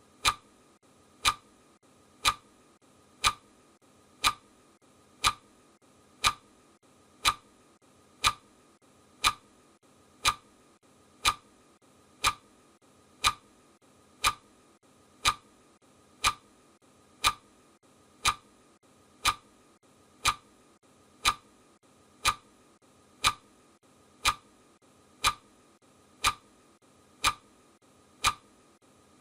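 Clock ticking, one even tick each second, every tick alike: the ticking sound track of a countdown timer marking off the seconds.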